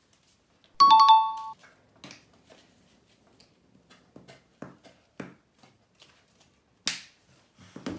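A loud, short two-note electronic chime about a second in, then soft taps and puffs about twice a second as talcum powder is shaken and squeezed from plastic bottles into glass bowls, with one sharper click near the end.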